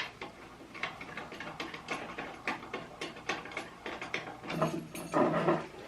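A wing nut being unscrewed by hand on the threaded rod that holds a sewing machine's flatbed attachment: a run of small, irregular metal clicks and rattles, with a louder, rougher stretch about four and a half seconds in.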